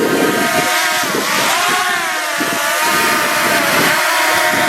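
Quadcopter drone flying close by, its propeller motors whining as a set of tones that rise and fall as the motors change speed.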